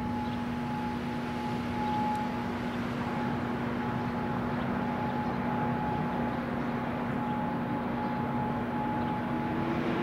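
Distant outdoor warning sirens holding a steady alert tone at two pitches, the higher one fading in and out, over a general outdoor hum. A lower wavering tone swells in near the end.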